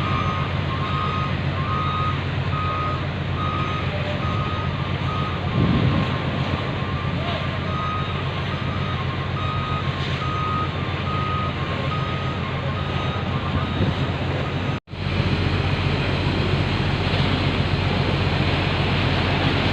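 Ferry's engines running with a steady low rumble while a vehicle's reversing alarm beeps repeatedly, a little under once a second, stopping about two-thirds of the way through. A brief dropout follows, then the rumble carries on.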